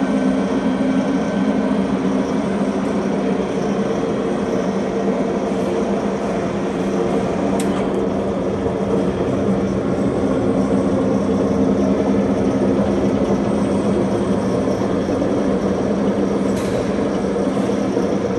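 Steady hum of a Tarnow TUJ50 gap-bed engine lathe under power, its motor running while the chuck stands still. Two light clicks come about halfway through and near the end.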